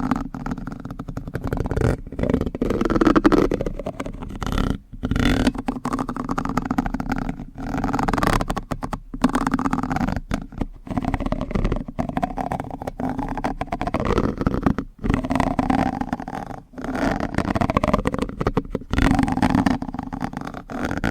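Close-miked ASMR spoon sounds from a plastic spoon: dense wet crackling and clicking in irregular phrases, broken by short pauses about every one to three seconds.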